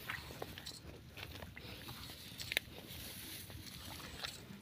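Footsteps through a flooded rice paddy, with wet rice stalks brushing and scattered small clicks and crunches; the sharpest click comes about two and a half seconds in.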